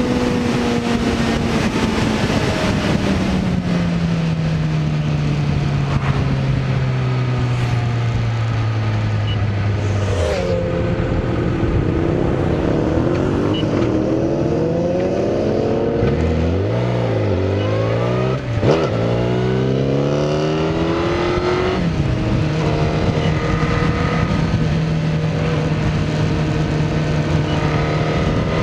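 Sport motorcycle engine riding with a constant rush of wind over it. Its note falls over the first third, then several engine notes rise and fall across each other through the middle, with one sharp click about two-thirds through, and the engine settles into a steady cruising note for the last third.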